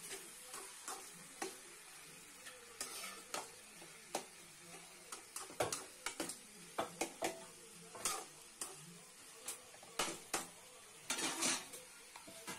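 A spoon stirring chicken and onions in a metal pot, with irregular scrapes and clinks against the metal that come thicker in the second half, over a faint sizzle from the pan.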